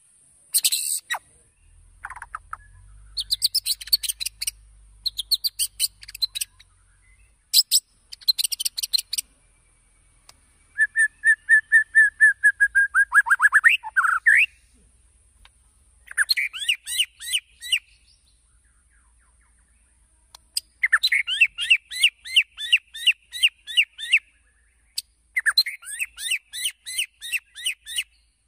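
White-rumped shama singing in loud bursts of fast repeated notes with short pauses between them. About eleven seconds in it holds one steady whistle for a couple of seconds, which breaks into a rapid falling trill. It is the full, energetic song used as a lure to set other shamas singing.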